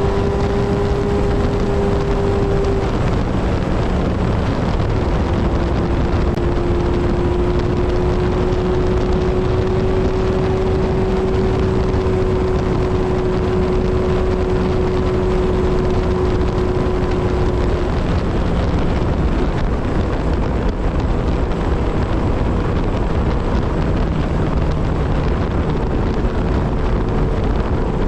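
Kawasaki Z1000 inline-four motorcycle engine cruising at highway speed, a steady drone under a rush of wind and road noise. Its note breaks briefly a few seconds in and comes back slightly lower, then holds steady.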